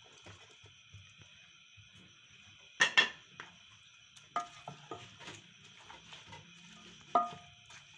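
Wooden spatula stirring minced meat and chopped green chillies in a metal cooking pot, with soft scraping and sharp knocks against the pot: a loud pair about three seconds in, a few more a second or two later and one near the end, some with a brief ring.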